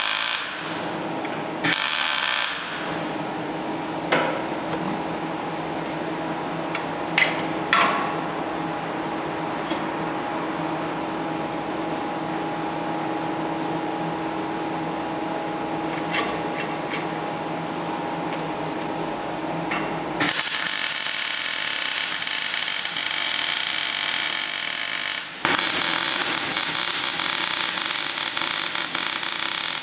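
MIG welding arc on steel crackling and hissing in runs: a short weld at the start and another about two seconds in, then a long weld from about two-thirds of the way through that breaks off briefly and starts again. In between, a steady machine hum with a few light metal clicks as a steel bracket is handled and set in place.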